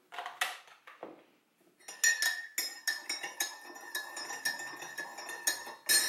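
Metal teaspoon stirring coffee in a ceramic mug, clinking quickly and repeatedly against the sides so that the mug rings. A few light clinks come first, then steady stirring from about two seconds in.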